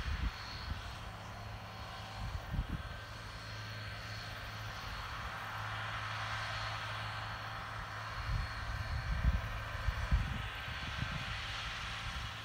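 MTZ 1221 tractor's six-cylinder diesel engine running steadily under load as it pulls a disc implement through the soil, heard as a continuous drone. Irregular low rumbles of wind on the microphone come and go over it.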